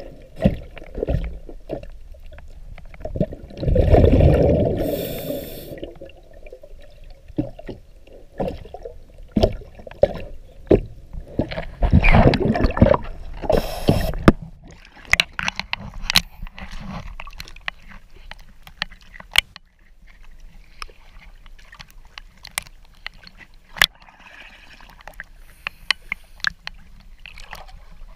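Underwater sound heard through a camera's waterproof housing: muffled clicks and knocks throughout, with two loud gurgling, bubbling bursts, one about four seconds in and a longer one around twelve to fourteen seconds.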